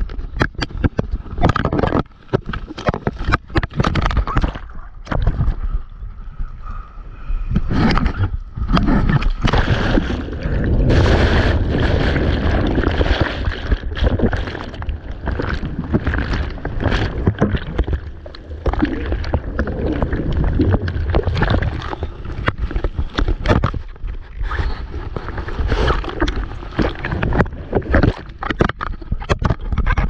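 Sea water churning, splashing and gurgling right at the camera as a surfboard rides and tumbles through breaking waves, with frequent sharp knocks and bumps.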